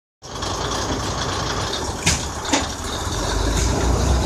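Kominato Railway KiHa 200 diesel railcar pulling away, its diesel engine running with a low rumble that grows louder about three and a half seconds in. Two sharp clicks come about two seconds in, half a second apart.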